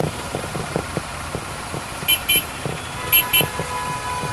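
A vehicle horn beeps in two quick double toots, the pairs about a second apart, and a steady horn-like tone then starts and holds. Street noise and scattered knocks run underneath.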